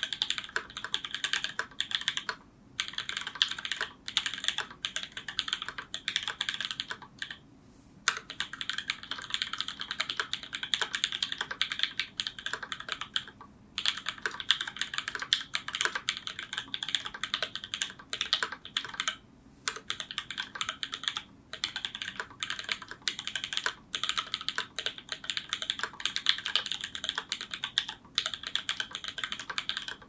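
Continuous typing on a Canoe Gen2 custom mechanical keyboard with an aluminium plate, lubed and filmed Alpaca linear switches and GMK ABS keycaps: a fast, steady stream of keystroke clacks, broken by a brief pause every few seconds.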